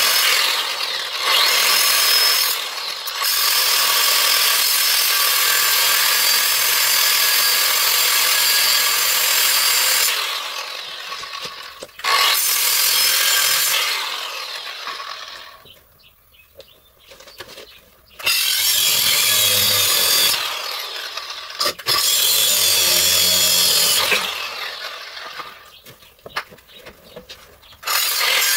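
Angle grinder cutting through old steel sway bar links. It runs in several long bursts, tapering off in the pauses between them as the disc spins down.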